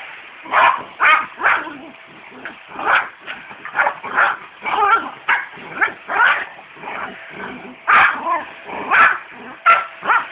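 A dog barking over and over in short, sharp barks, about one or two a second at an uneven pace.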